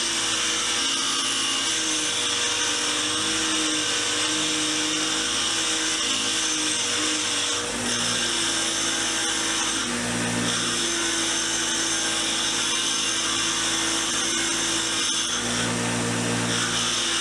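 Motor-driven wire wheel spinning with a steady hum while rusty steel wrench parts are pressed against it to brush off the rust. The high scratchy brushing sound comes in several spells of a few seconds each, with short breaks as a part is shifted or turned.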